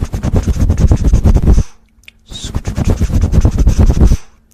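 A metal fork scratching rapidly in ASMR scalp-scratching, in two loud bouts of about two seconds each with a short pause between.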